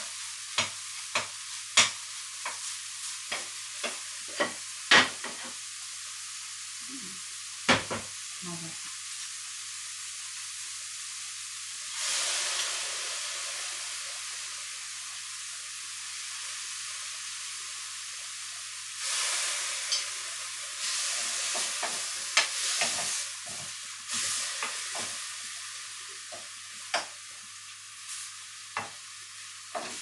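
Food sizzling as it is stir-fried in a steel wok, with frequent sharp clicks and scrapes of a wooden spatula against the pan. The clicks are thickest in the first several seconds; the sizzle swells louder about twelve seconds in and again from about nineteen to twenty-five seconds.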